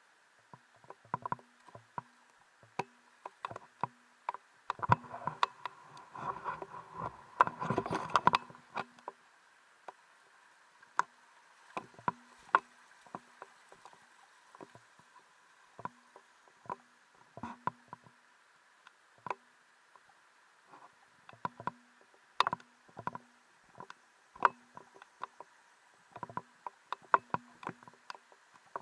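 Irregular clicks and knocks of footsteps and carried gear on rocks, from someone clambering up a boulder-strewn stream bed. The knocks come thickest in a burst about five to nine seconds in, over a faint steady background hiss.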